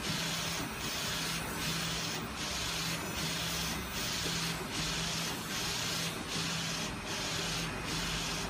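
Flatbed inkjet printer's print-head carriage sweeping back and forth along its rail: a steady whirring hiss with a low motor hum. It breaks off briefly at each turn of the carriage, about every 0.8 seconds.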